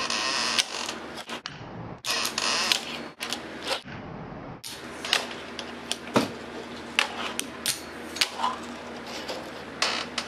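Fingerboard being ridden on a desk and a small metal rail: two stretches of hissing rolling or grinding near the start and about two seconds in, then a string of sharp clacks as the deck and wheels pop and land.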